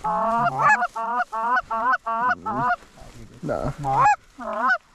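Canada goose calls blown in quick succession to work an approaching flock: about eleven short honks and clucks, each breaking from a low note up to a high one, with a brief pause about three seconds in.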